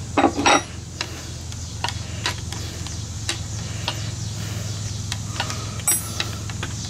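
Irregular light metallic clicks and taps from a wrench and a small-engine carburetor being handled as the float bowl nut is loosened and the bowl worked off, over a steady low hum. A sharper metallic clink rings out near the end.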